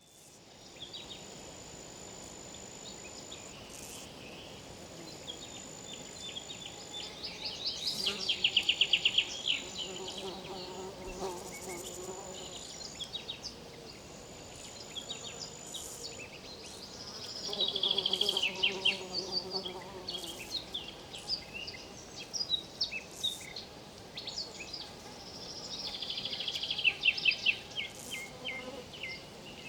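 River insects buzzing and trilling over a faint steady wash of running water. Louder bursts of rapid pulsing come three times, about nine seconds apart, and a thin high whine comes and goes between them.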